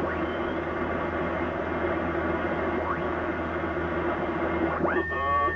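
Yaesu FTdx1200 HF transceiver's speaker hissing with 80-metre band static as the tuning dial is swept across the band, with short sliding whistles as it passes signals. Near the end a station comes in as a steady heterodyne whistle with garbled, off-tune voice.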